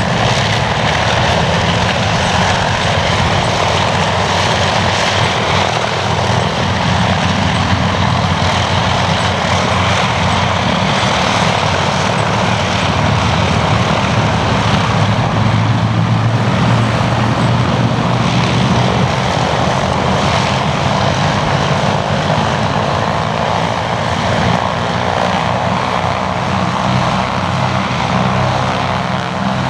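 Piston aero engines of a formation of warbirds flying past, a loud steady drone with no break. The formation is a Bristol Blenheim, a Hawker Hurricane I and a P-51D Mustang.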